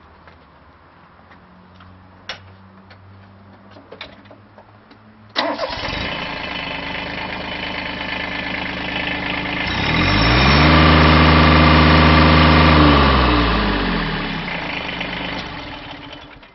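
Kubota B1620 compact tractor's three-cylinder diesel engine starting: a few light clicks, then the engine catches suddenly about five seconds in and idles. About ten seconds in it is revved up, held for a few seconds, then drops back to idle.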